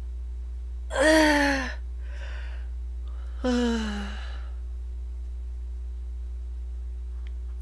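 A man lets out two wordless voiced sighs while stretching, each falling in pitch: a longer, louder one about a second in and a shorter one about three and a half seconds in.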